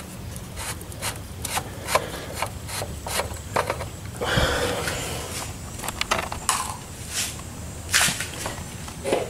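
Oil filler cap on a Ford Ranger engine being twisted off and lifted out by hand: irregular plastic clicks, rubs and scrapes, with a longer scrape about halfway through.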